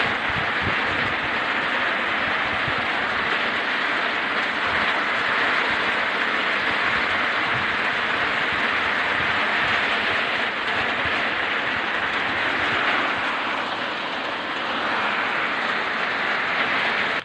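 Typhoon wind and heavy rain: a loud, steady rushing roar that holds at an even level throughout.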